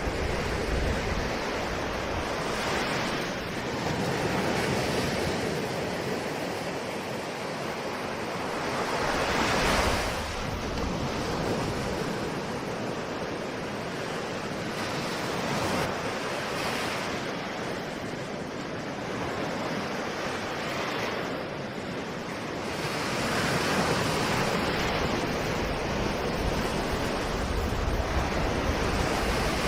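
Ocean surf: waves breaking and washing ashore in a continuous rush that swells and eases every few seconds. There is a strong surge about ten seconds in and a louder stretch of breakers near the end.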